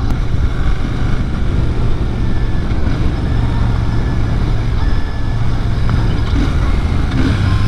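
Royal Enfield Shotgun 650's 648 cc parallel-twin engine running steadily as the motorcycle rides along, mixed with wind rushing over the on-bike microphone.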